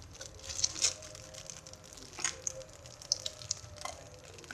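A homemade squishy being squeezed: soft rustling with a few short crinkly crackles spread out over a few seconds.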